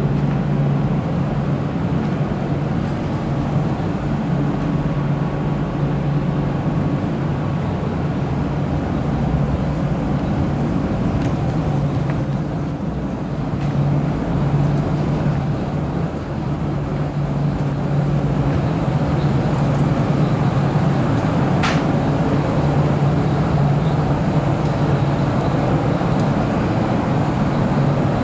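Steady machine-room drone of an AXE10 telephone exchange's equipment hall: ventilation and cooling air rushing with a low hum. A single short click comes about three-quarters of the way through.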